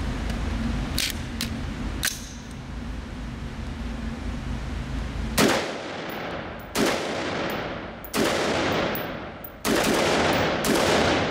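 Five AR-15 rifle shots at a steady slow pace, about one every one and a half seconds, the last two a little closer together. Each shot rings on in the concrete indoor range. Before them there is a steady rushing noise with a few light clicks.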